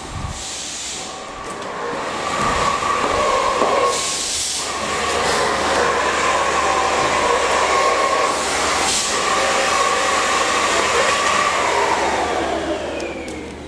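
Drone of a passing vehicle, building up about two seconds in, holding steady, then fading away near the end.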